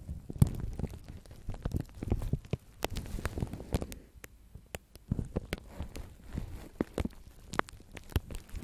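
Two fluffy makeup brushes sweeping over plastic cling film wrapped around a microphone. The result is a dense, irregular run of crinkling crackles and rustles with a low rumble beneath.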